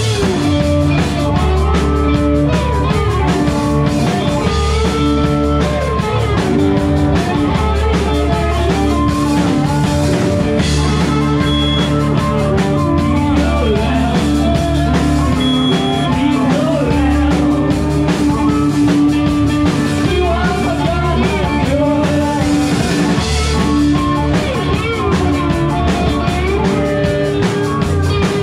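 Live band playing a rock number: drum kit, guitar and upright bass, with harmonica and a singer's voice over the top.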